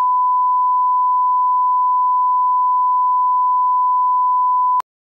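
Test-signal reference tone sounding with colour bars: a single steady, loud tone that cuts off abruptly near the end.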